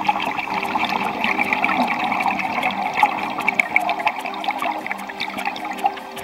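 Scuba diver's exhaled air bubbling and crackling underwater, a steady dense stream of small pops and clicks.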